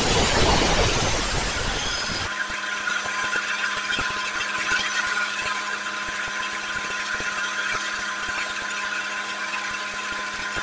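Belt sander grinding the steel of a saw-blade ulu: loud grinding noise for about the first two seconds, then the belt runs free with a steady hum and whine.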